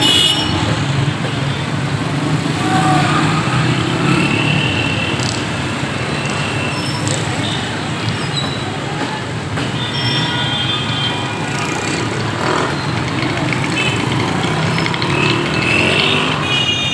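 Busy city street: a steady din of road traffic and engines, with indistinct voices in the crowd.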